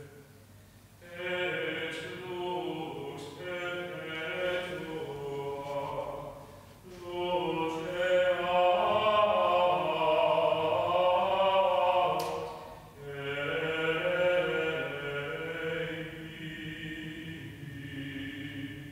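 Liturgical chant sung in three long phrases with short breaks between them, the middle phrase the loudest.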